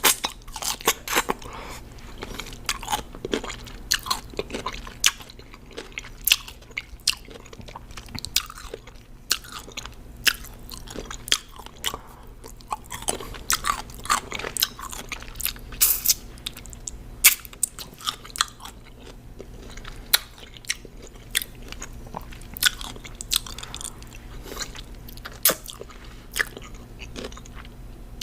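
Raw cucumber being bitten and chewed: irregular crisp crunches, several a second, with a few louder bites among them.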